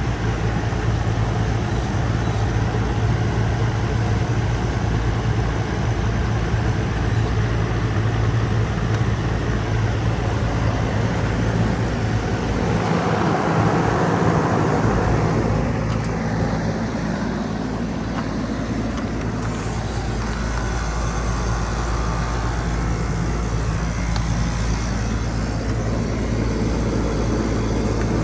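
Goodman GSZB4 2.5-ton heat pump outdoor unit running in its defrost cycle: a steady compressor hum under a rushing hiss, with a brief swell of louder hiss about halfway through.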